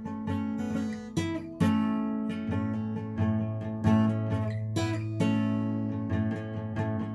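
Acoustic guitar being strummed and picked, a run of chords with repeated attacks and ringing sustained notes, no voice.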